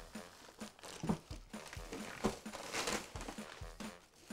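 Plastic wrapping and cardboard rustling as wrapped lawnmower handle parts are handled and lifted out of a box, over a faint regular beat of background music.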